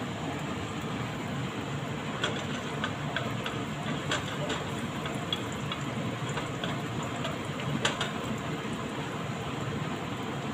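Chopped garlic and ginger sizzling steadily in oil in a nonstick pan, sautéing. Scattered pops and ticks come through the middle stretch while a plastic spatula stirs them.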